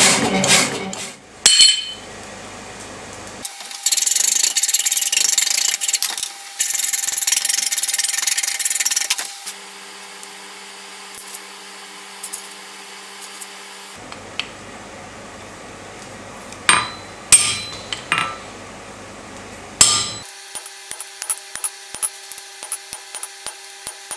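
Metal-cutting bandsaw cutting through 5 mm steel flat stock, a loud rough noise in two stretches in the first half. Later come a few sharp knocks and then a run of light, quick taps as the cut steel plate is marked out with a chisel on the anvil.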